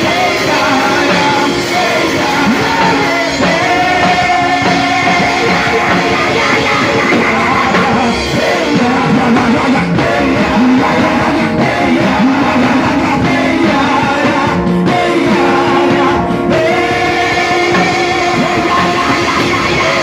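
Loud band music with singing, a guitar among the instruments, running steadily.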